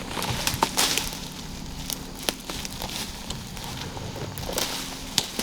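Irregular crackling and rustling of dry leaf litter, with scattered sharp clicks and snaps.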